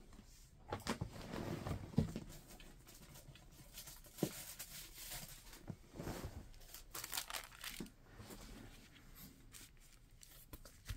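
Paper rustling and crinkling in irregular, scattered bursts with a few sharp ticks, as a sheet of wax paper is handled and torn off.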